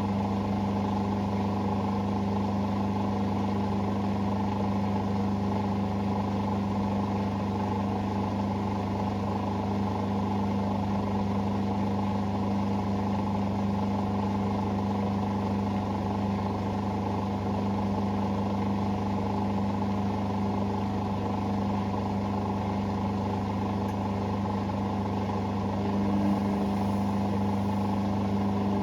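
Hoover Sportswear 1300 washing machine running with a steady, unbroken motor hum.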